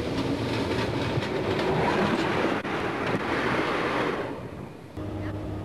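Steam locomotive rolling past at track level, its wheels clacking over the rail joints with a rushing noise that fades away about four seconds in. About five seconds in the sound cuts abruptly to a steady low hum.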